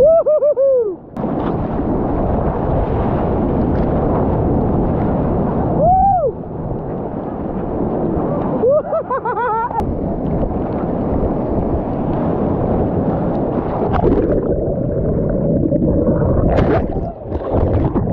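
Breaking surf and churning whitewater washing around a kayak, heard close on a camera splashed by the waves, with wind buffeting the microphone. Brief arching, whistle-like tones rise and fall near the start, about six seconds in and about nine seconds in.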